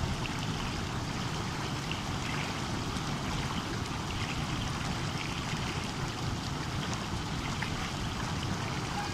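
A stream of water flowing and babbling steadily.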